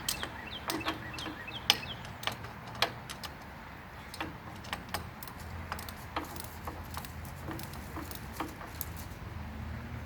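Irregular metallic clicks and clinks of a hand tool working bolts loose on a lawn tractor engine cover, over a steady low hum.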